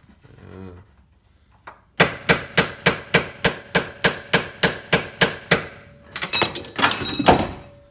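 Hammer blows on metal, a quick run of about fifteen ringing strikes at roughly four a second, followed by a burst of faster, clattering metallic hits, while a coilover is forced into its strut mount.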